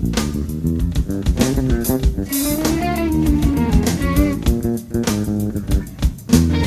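Jazz-fusion band jam: an electric bass plays a busy line over a drum kit, with some notes sliding in pitch.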